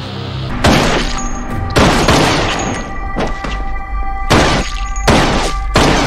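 Dramatic action score with a series of about six sharp bangs and hits from fight-scene sound effects, the first, about a second in, a handgun shot.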